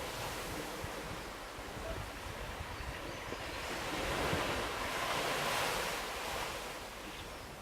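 Ocean surf rushing, swelling to a peak about four to six seconds in, with wind buffeting the microphone.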